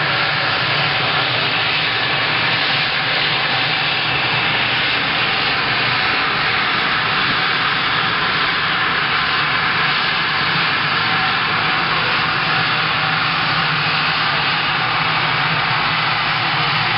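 Jet engines of a twin-engine business jet running as it taxis, a steady, even rush of noise.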